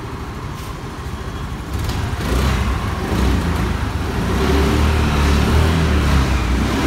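Honda Activa scooter's single-cylinder four-stroke engine running, freshly rebuilt after it had seized; it grows louder from about two seconds in.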